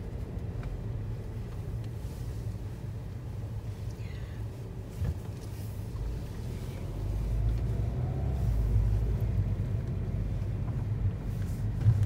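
Car driving, heard from inside the cabin: a steady low engine and road rumble that grows louder about seven seconds in.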